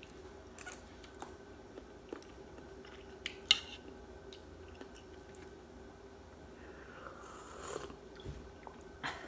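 Quiet eating sounds of vegetable soup: chewing and small clicks of chopsticks against ceramic bowls, with one sharp, loud click about three and a half seconds in. Near the end, a slurp of broth from the small bowl.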